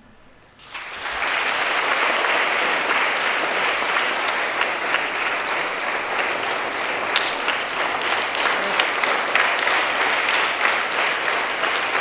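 Audience applauding: clapping swells in about a second in and then carries on steadily.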